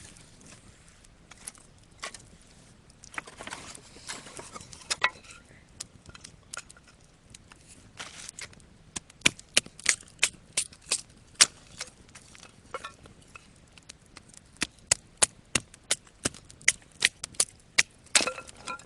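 Dry wood cracking and snapping: a run of sharp, separate cracks, sparse at first with some rustling, then coming about twice a second through the second half.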